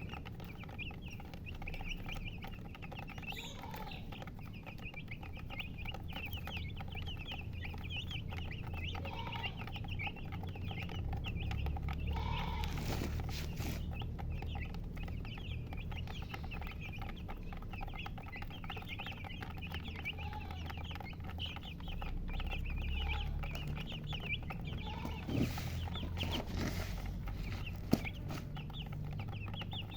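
A brood of baby chicks peeping continuously, many short, high, rapid cheeps overlapping, with a hen clucking now and then over a steady low rumble. A sharp click comes near the end.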